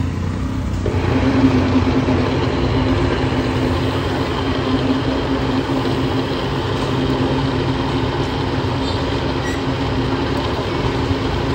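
Countertop electric blender running with a steady motor hum, settling into a stronger, even tone about a second in.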